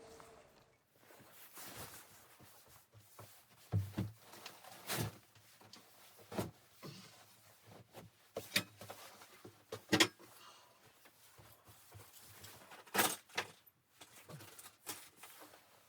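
Irregular handling sounds: a series of sharp knocks and clatters at uneven intervals, with faint rustling between them.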